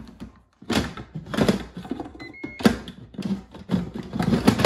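Plastic pressure lid of a Ninja Foodi multicooker being set on the pot and twisted to lock, scraping and clunking against the rim in several bursts. A short electronic beep from the cooker sounds a little over two seconds in.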